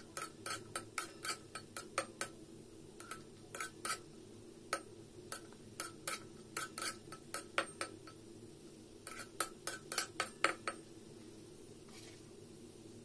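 Metal spatula clinking and scraping against a metal kadai while stirring cashews frying in ghee. The clicks come quick and irregular, several a second, and stop a couple of seconds before the end.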